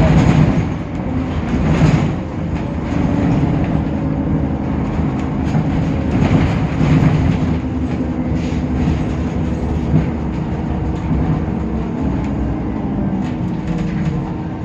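Cabin sound of a Temsa Avenue LF city bus under way: its DAF PR 228 diesel engine and ZF automatic gearbox running with a steady hum over a low rumble, with light knocks and rattles.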